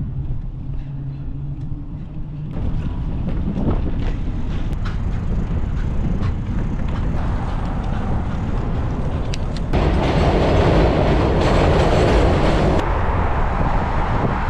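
Steady rumble of riding along a road, with wind on the microphone. It grows louder about two and a half seconds in and again, more roaring and hissing, about ten seconds in.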